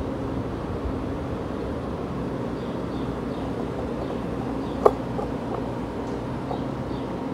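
Metro-North M8 electric multiple-unit train starting to pull slowly out of the station, its motors and onboard equipment giving a steady hum. A single sharp clank comes about five seconds in.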